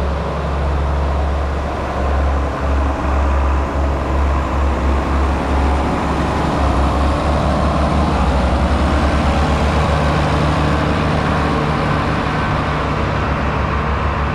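John Deere 7520 tractor's diesel engine running steadily close by, with a deep, even pulse that quickens in the second half as it works the silage bunk.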